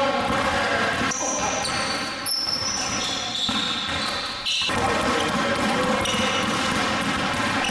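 Basketball bouncing on a hardwood gym floor during shooting and dribbling drills, in an echoing gym. The sound changes abruptly at a few edit cuts.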